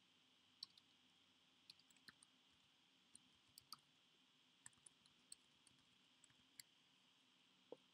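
Faint, irregular clicks of computer keyboard keys being typed, often a few in quick succession.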